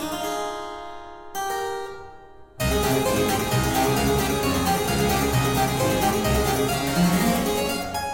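Harpsichord music. A few separate notes ring out, then about two and a half seconds in the playing turns suddenly loud and dense, with thick chords and a strong bass.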